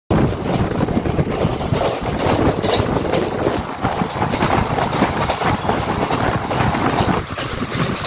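Wheels of an Indian passenger express coach running over the rails at about 100 km/h: a steady, dense rattle and clatter of wheel-on-track noise, heard close from the coach window.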